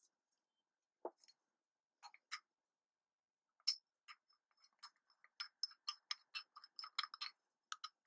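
Faint clicks and small taps of a metal cylinder being turned and fiddled with in the hands: a few scattered clicks at first, then a quicker, irregular run of clicks from about halfway through.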